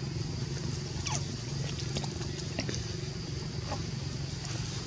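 A motor engine running steadily with a low hum, and a few short, high chirps that sweep downward at about one, two, two and a half and almost four seconds in.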